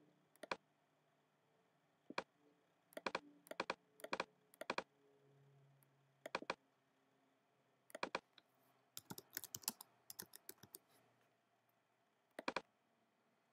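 Quiet, scattered single clicks, then a quick run of about ten keystrokes of typing about nine seconds in, and one more click near the end.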